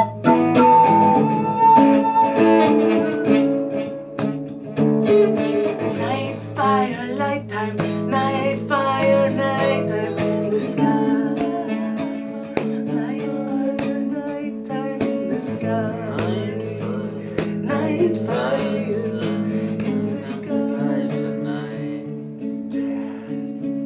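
Acoustic guitar strummed under a wooden double flute playing a melody of held notes.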